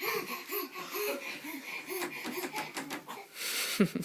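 A young child laughing in a string of short, rising-and-falling ha-ha syllables, about three a second, ending in a breathy rush of air near the end.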